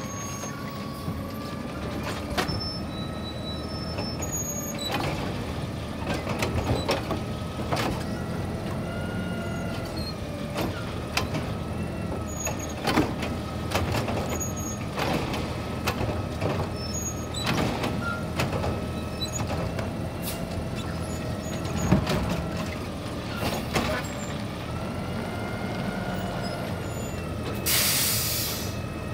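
Mack LR side-loader garbage truck idling while its automated arm grabs, lifts and dumps recycling carts: the engine revs up and down several times as the hydraulics work the arm, with clanks and bangs of the arm and the plastic carts. A hiss of air brakes sounds for about a second near the end.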